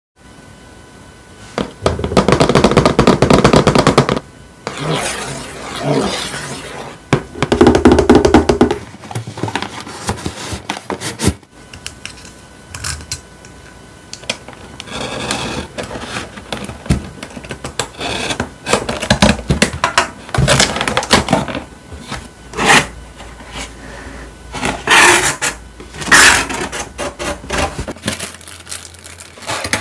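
Unboxing handling sounds: hands tapping, scratching and rubbing on a cardboard box, then opening it and handling the styrofoam insert and plastic-wrapped parts. It comes as a series of irregular noisy bursts and sharp clicks.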